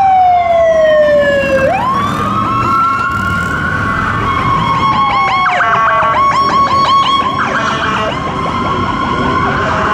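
Fire truck sirens passing. A wail falls in pitch, then climbs sharply about two seconds in. It changes to a fast yelp while a second siren wails at the same time.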